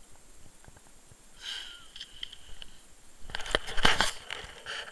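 Crackling, rubbing knocks of a hand handling the action camera, loudest between about three and a half and four seconds in, with a shorter scuff about a second and a half in.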